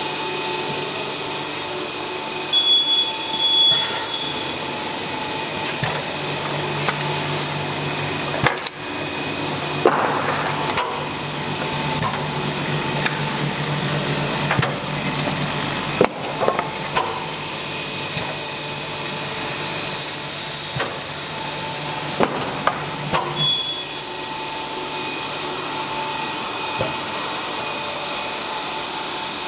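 Komfi Amiga thermal laminator running: a steady mechanical whir with a faint high whine, a low hum through most of the middle, and scattered clicks and knocks.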